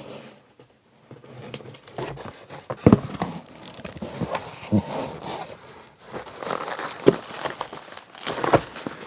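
Packaging being unwrapped by hand: crinkling and rustling of wrapping with occasional sharp knocks from handling the box and its contents.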